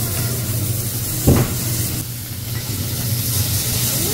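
Beef sizzling on a hot teppanyaki griddle, a steady hiss over a low steady hum, with a single sharp metallic clack of the chef's knife or tongs on the steel plate about a second in. Toward the end the hiss builds as liquid poured from a bottle hits the hot plate and flashes into steam.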